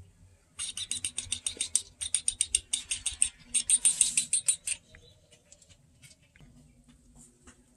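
A kitten eating from the bottom of an old jar: a rapid run of small, sharp chewing clicks, about eight a second, in two spells that stop about five seconds in.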